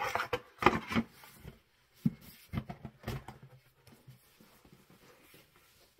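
Irregular knocks, taps and rubbing as a box and its contents are handled and moved about, the busiest clatter in the first second and a few more knocks a couple of seconds in.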